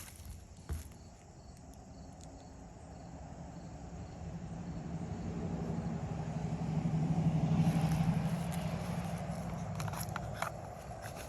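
A passing motor vehicle, its engine hum growing louder over several seconds, peaking about two-thirds of the way in and then fading. A few light clicks sound near the start and near the end.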